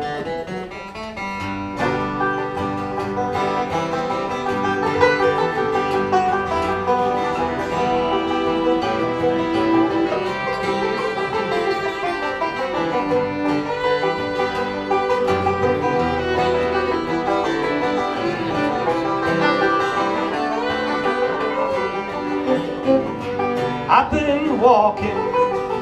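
Bluegrass trio of banjo, fiddle and acoustic guitar playing a song's instrumental introduction, the banjo picking over strummed guitar and bowed fiddle. The band comes in about a second in and plays steadily.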